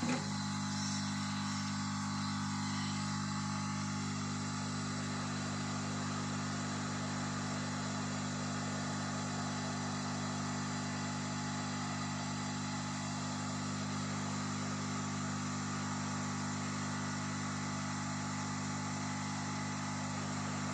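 Hot-air rework station blowing steadily, a constant fan hum with a rushing hiss of air, as its nozzle heats a chip on a TV main board to melt the solder so the chip seats.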